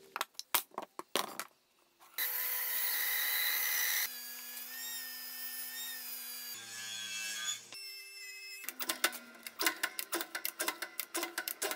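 Woodworking machine noises cut together: a few sharp knocks, then a bandsaw cutting through a wooden board for about two seconds, then a steady machine whine, and near the end a rapid run of sharp knocks.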